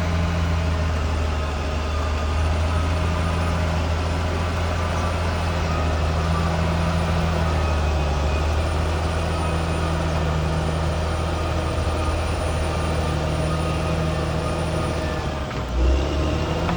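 Caterpillar D6R XL bulldozer's diesel engine running at a steady pitch while the dozer levels ground, with a short low surge in the engine sound near the end.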